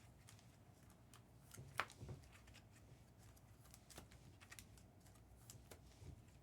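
Near silence with faint, scattered clicks and light taps; the sharpest click comes a little under two seconds in, followed by a soft thump.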